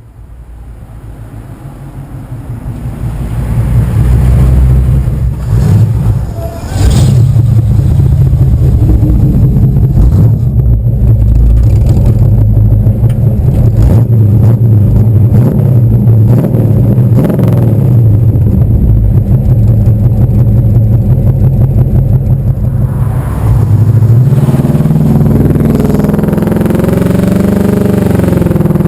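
1964 Pontiac Catalina's V8 engine running with a low, steady sound that grows louder over the first few seconds. Near the end it revs up and back down.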